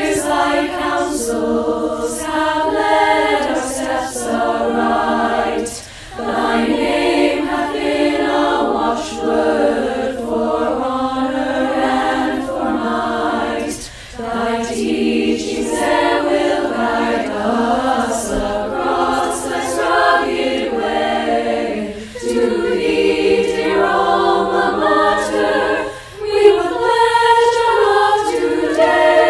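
Girls' choir singing a school alma mater, a virtual choir mixed from separate home recordings. The singing runs in phrases of about eight seconds, with short breaks for breath between them.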